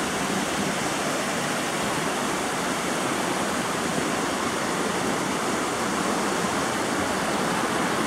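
A mountain river running high after the winter rains, rushing over rocks in white-water rapids: a steady, even rush of water.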